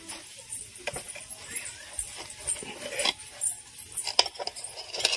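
Small kitchen knife cutting through a soft, spongy cake on a steel plate. Scattered light clicks and scrapes come from the blade touching the metal plate.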